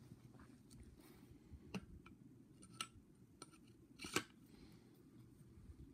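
Faint clicks and taps of a white lightsaber blade tube being handled and pushed into the saber hilt's emitter, with a few separate knocks and the loudest about four seconds in.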